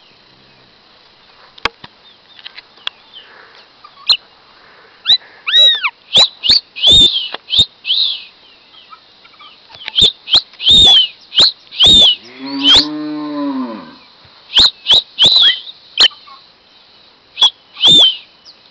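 Chopi blackbird (pássaro-preto) calling loudly at close range: clusters of short, sharp calls, each a quick arched whistle, starting about five seconds in. Around twelve seconds in a cow moos once, a long falling call.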